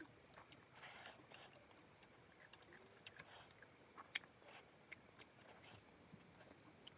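Faint eating sounds: scattered soft clicks and wet smacks as fish in curry is picked apart by hand and chewed.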